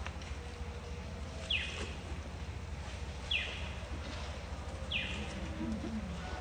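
A bird calling in the forest: a short high note that falls in pitch, three times about a second and a half apart, over a steady low hum.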